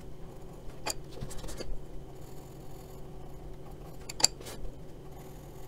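Graphite sketching pencil scratching on drawing paper in a few short strokes, a cluster about a second in and a sharper, louder one about four seconds in.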